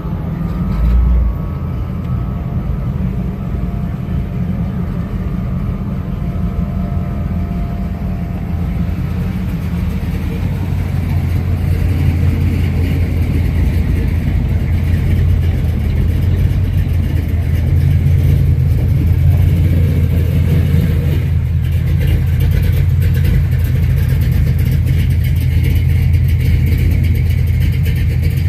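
Hot-rod car engine running at idle with a steady low rumble, growing louder around the middle.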